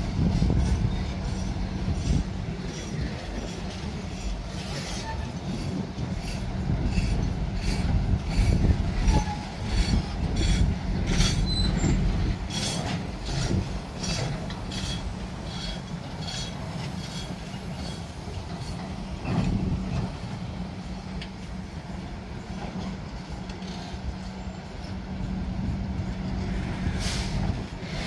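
Freight train of bauxite gondola wagons rolling past close by: a steady low rumble of steel wheels on rail. About a third of the way in comes a run of quick clanks and clicks with a few short wheel squeals, and there is a sharp clank near the end.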